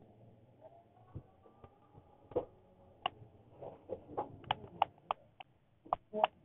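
Irregular light clicks and taps, scattered at first and coming more often from about three and a half seconds in.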